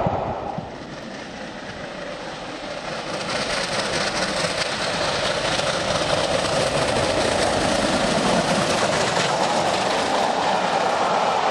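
An unrebuilt Bulleid Light Pacific steam locomotive running at speed, getting steadily louder as it approaches over the first several seconds. It then passes close by, its train rumbling over the rails.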